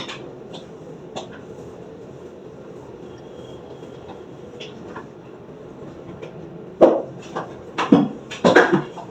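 Light rain falling steadily, with scattered drips tapping. In the last two seconds come a run of much louder, irregular knocks.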